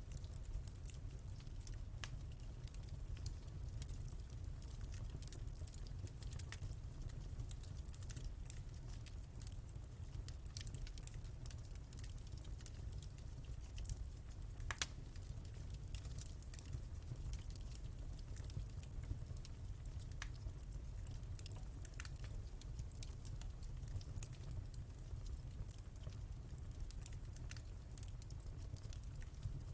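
Wood fire in a fireplace crackling, with irregular small pops and snaps throughout and one sharper pop about halfway through, over a steady low rumble.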